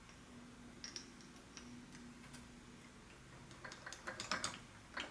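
Light metal clicks and taps as a piston and wrist pin are handled and lined up on the connecting rod of a 66/80cc two-stroke bicycle engine: a few scattered ticks, then a quicker run of clicks near the end.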